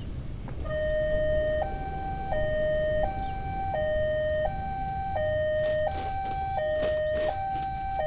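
Railway level-crossing warning alarm sounding: an electronic two-tone signal that starts about a second in and steps back and forth between a lower and a higher tone, each held for less than a second. It is the warning that a train is approaching and the barriers are coming down. A low rumble runs underneath.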